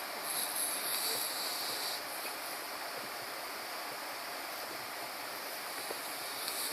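Snoring: one hissing snore breath lasting about a second and a half near the start, with the next beginning about six seconds later at the very end, over a steady background hiss.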